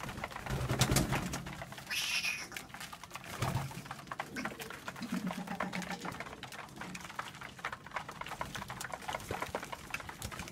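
Racing pigeons cooing at a feeder, low calls about a second in and again near the middle, over a steady patter of quick clicks from beaks pecking grain in the plastic trough. A brief rustle comes about two seconds in.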